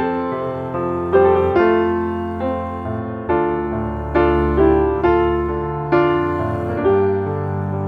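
Background music: a slow, gentle piano melody, notes struck about once every second and left to ring out.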